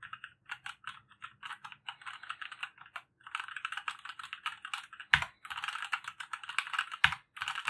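Motospeed CK104 mechanical keyboard being typed on at random, a run of crisp key clicks. The keystrokes are sparser for the first three seconds, then come fast and dense, with two louder, heavier strikes about five and seven seconds in.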